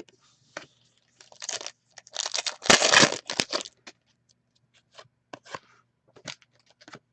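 Paper-and-foil rustling and tearing, loudest for about two seconds near the middle, like a trading-card pack wrapper being ripped open. After it come several light clicks and rustles of cards being handled.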